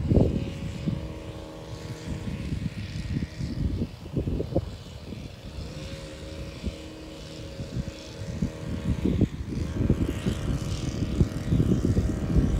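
A distant engine drones steadily with a held hum of several tones, under gusts of wind buffeting the microphone. The wind is strongest at the start and again near the end.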